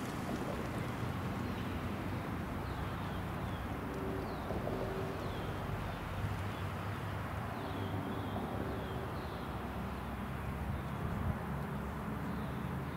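Steady low rumble of a distant NJ Transit Arrow III electric multiple-unit train on the track, with small birds giving short falling chirps throughout.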